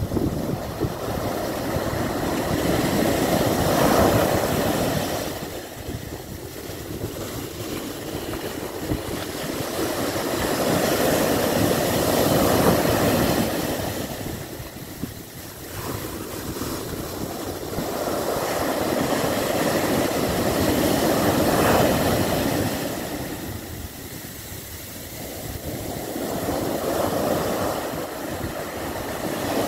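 Surf breaking on a sandy beach: a rushing wash of waves that swells and fades about every eight to nine seconds.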